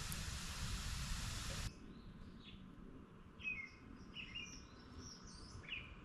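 A steady hiss that cuts off suddenly about two seconds in, followed by birds chirping at dawn: short, separate calls repeating every second or so.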